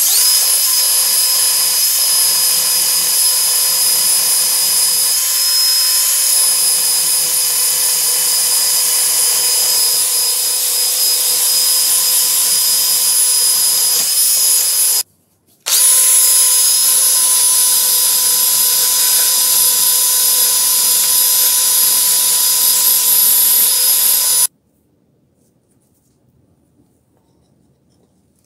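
Handheld rotary tool spinning a small wire brush wheel against a rusted steel vernier caliper, scrubbing off the rust with a steady high-pitched whine. The tool stops for a moment about halfway, starts again, and cuts off a few seconds before the end.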